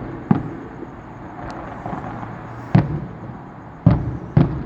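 Fireworks shells bursting at a distance: four sharp booms, one about a third of a second in, one near three seconds, and two close together near the end.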